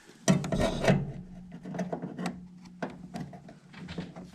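Rubbing, scraping and a run of sharp clicks and knocks as the furnace's condensate drain hose is pushed back onto its fitting. A faint low steady hum comes in about a second and a half in.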